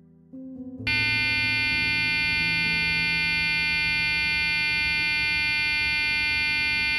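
Steady, unchanging electronic buzz rich in high tones, starting about a second in and cutting off sharply near the end, with a brief lower tone just before it. It sounds while the Siemens Somatom CT scanner takes its topogram and is the X-ray-on warning tone during the exposure.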